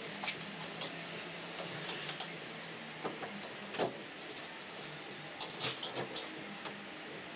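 Irregular light clicks and scrapes of a hand tool working along the top edge of a VW bay window bus side window, prying at the window rubber and trim. There is a sharper click a little past the middle and a quick run of clicks near the end.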